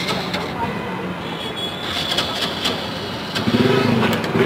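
Busy street noise with steady traffic running, cut by a few sharp clicks and clatters. About three and a half seconds in, a louder engine-like drone comes in.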